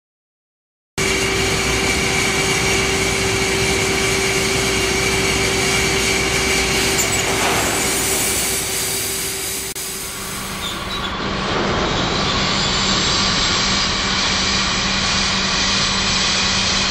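Loud, steady rushing roar of liquid and gas venting through a large insulated process vent pipe in slug flow, with a steady hum running through it. It starts about a second in, dips about ten seconds in, then comes back with a lower hum.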